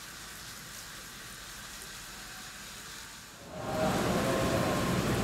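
Steady hiss of water spraying from the trackside snow sprinklers. About three and a half seconds in, the noise rises sharply as an N700-series Shinkansen approaches through the station, with a steady low hum and a faint higher whine.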